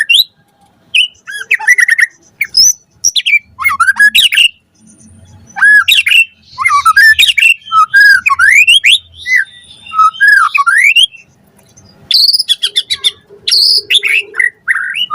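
White-rumped shama singing in loud, fast phrases of sweeping rising and falling whistles and rapid chattering notes, with a couple of brief pauses between phrases.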